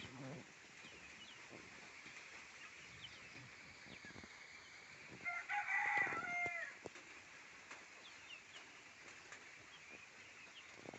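A local-breed rooster crows once, a loud call of about a second and a half near the middle, ending on a held, slightly falling note. Faint short chirps sound in the background.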